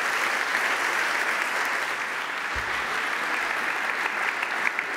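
A large seated audience applauding steadily, the clapping starting to break into separate claps near the end.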